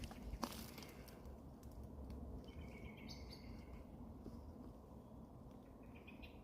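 Faint woodland birdsong: a small bird chirps twice, a short call about two and a half seconds in and another near the end, over a quiet low background.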